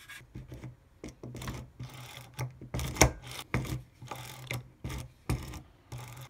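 Stanley Yankee 135A spiral ratchet screwdriver being pumped to drive a screw into wood: about a dozen quick, irregular mechanical strokes of the spiral shaft and ratchet, the loudest about three seconds in.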